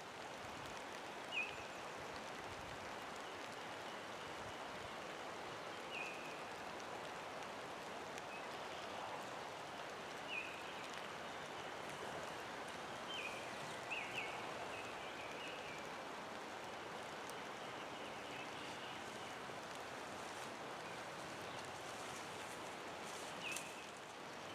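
Steady rush of flowing creek water, with a bird giving short chirps about six times.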